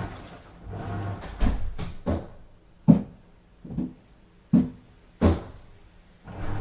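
Washing machine on a strong wash cycle, the drum turning the wet load: a run of short knocks and swishes, roughly one every second or less, with a longer swell near the end.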